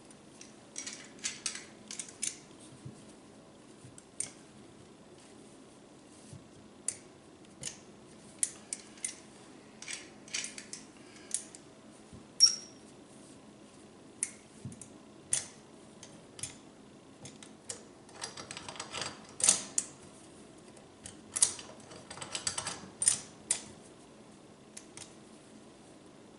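Vise-grip pliers clicking and scraping against a metal faucet spout as it is tightened: irregular sharp clicks, one louder ringing metal clink about halfway through, and two short bouts of rapid clicking and scraping near the end.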